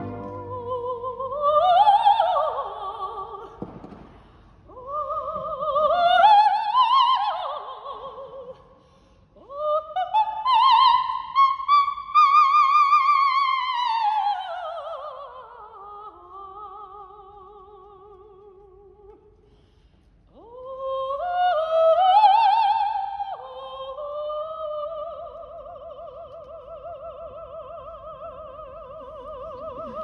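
Operatic soprano singing unaccompanied phrases with wide vibrato, separated by short pauses. About halfway through she climbs to a high note and swoops down from it, and she ends on a long held note.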